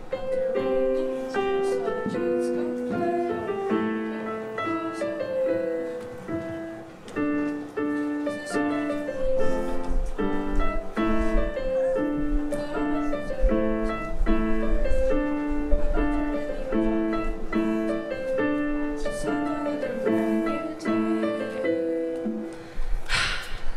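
Piano playing an instrumental passage of steady, repeating broken chords without singing, then stopping near the end, where applause starts.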